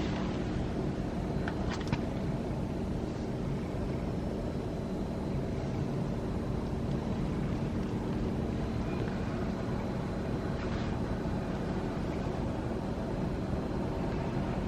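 A vehicle engine runs steadily with a constant low hum, with wind noise on the microphone and a couple of faint clicks.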